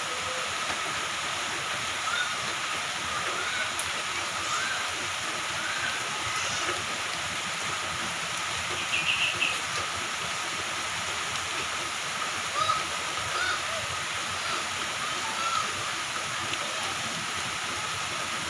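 Moderate to heavy rain falling steadily, an even hiss, with short chirps scattered through it.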